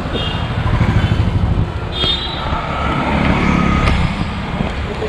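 Busy street traffic: the steady rumble of motor vehicles such as scooters, cars and auto-rickshaws passing close by, with a couple of brief high tones over it.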